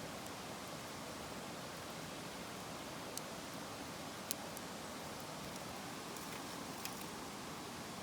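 Wood fire burning, crackling with a few sharp pops, the loudest about four seconds in, over a steady low hiss.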